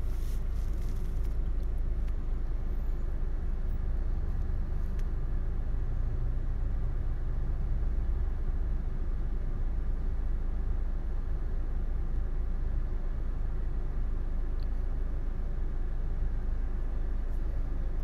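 Steady low rumble with no distinct events.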